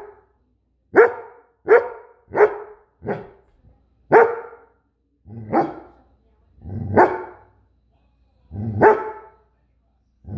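Goldendoodle barking: about eight single loud barks, four in quick succession over the first three seconds, then slower and more spaced, the last ones longer and deeper.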